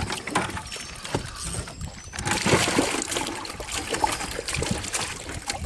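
River water splashing and trickling, louder and more rushing from about two seconds in.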